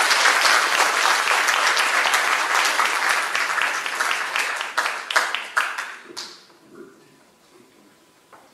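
Audience applauding. The clapping thins to a few scattered claps and dies away about six seconds in.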